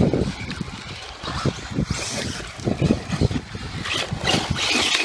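Electric radio-controlled cars running on a dirt track, motor and tyre noise coming and going. Near the end a brighter hiss rises as one passes close, its tyres on loose dirt.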